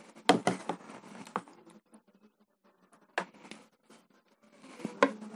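Metal spoons scraping and clinking against ceramic plates and a plastic serving bowl as rice and chicken curry are scooped, with a few sharp clicks among softer scrapes.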